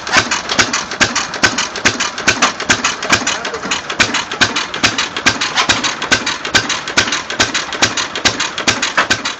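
Belt-driven gold-ore stamp mill running, its stamps dropping in a steady, even clanking rhythm of about four blows a second.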